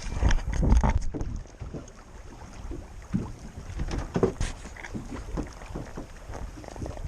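Wind buffeting the microphone on an open boat, strongest in the first second, with scattered knocks and clatter of handling gear on the deck.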